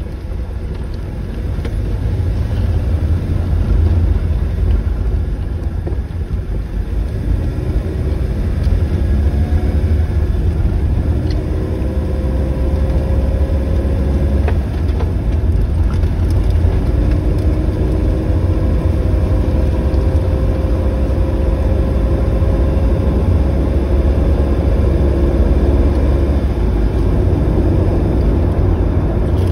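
Motor vehicle on the move: a steady low rumble of engine and road noise, with an engine note that climbs slowly in pitch a couple of times.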